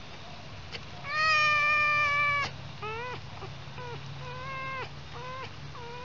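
Red fox whining as its belly is rubbed: one long, high whine about a second in, then a string of shorter whines that each rise at the start and then level off.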